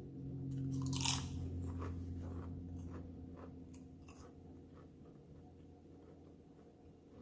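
Close-up mouth sounds of a person eating a BLT sandwich with turkey bacon: a loud crunchy bite about a second in, then crackly chewing that fades away over the next few seconds.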